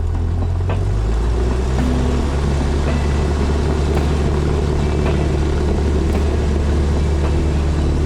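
Cessna 172 piston engine and propeller going up to full power for the takeoff roll about a second in, then running steadily at high power.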